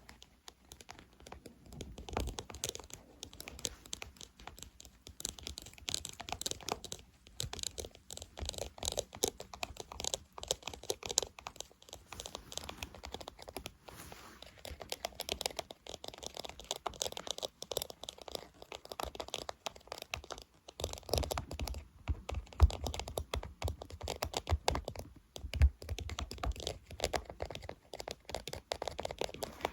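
Fast, irregular ASMR ear-cleaning sounds: scratching, clicking and crinkling, standing in for working a softened plug of hard earwax out of the ear. Heavier thuds come in about two-thirds of the way through.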